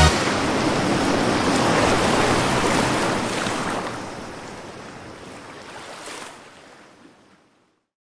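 Ocean surf washing on a shore, steady at first, then fading away and gone about seven seconds in.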